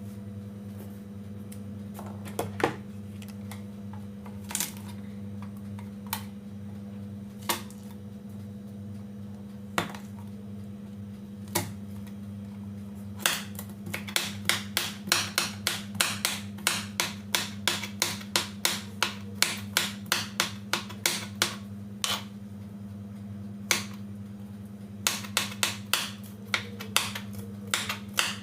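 Kitchen knife chopping fresh coriander on a cutting board: a few single knocks at first, then quick steady chopping at about three strokes a second from about halfway through, pausing briefly and starting again near the end. A steady low hum runs underneath.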